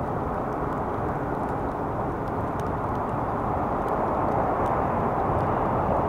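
Steady outdoor rushing noise that swells slightly in the second half.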